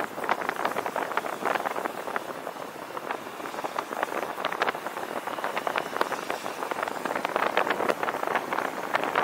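Car driving along a city road: steady road and traffic noise, with wind buffeting the camera's microphone in rapid, irregular crackles.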